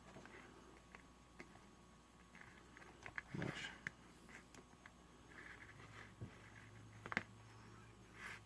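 Near silence: room tone with a few faint scattered clicks, and a faint low hum that starts a little past halfway and stops just before the end.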